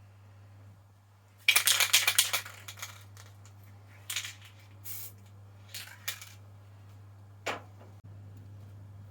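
An acrylic aerosol spray paint can is shaken hard for about a second, its mixing ball rattling in quick clicks. A few short bursts of hissing and knocking follow. A steady low hum runs underneath.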